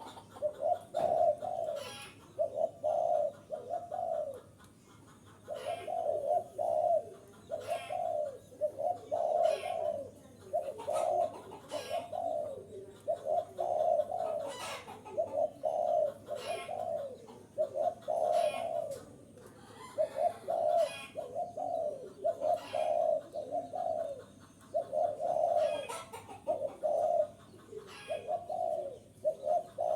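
Spotted dove cooing over and over in short phrases of low, repeated coo notes.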